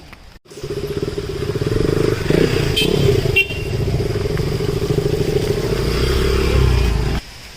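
A motor vehicle engine running close by with a rapid, even firing rhythm. It starts abruptly about half a second in and cuts off suddenly about seven seconds in.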